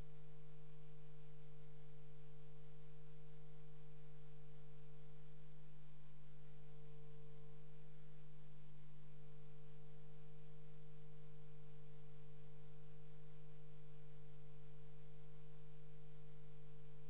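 Steady electrical hum: a constant low tone with a fainter higher tone above it, unchanging and with no other sound.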